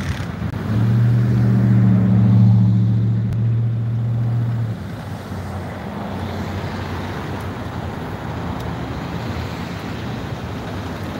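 A motor vehicle engine drones steadily and low for about four seconds, then drops away abruptly, leaving a steady wash of road traffic noise.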